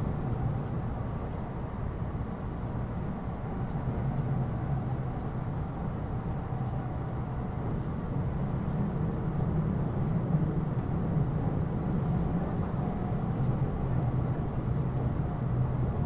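Steady low rumble of a JR East E259 series Narita Express train running at speed, heard inside the passenger cabin, growing slightly louder in the second half.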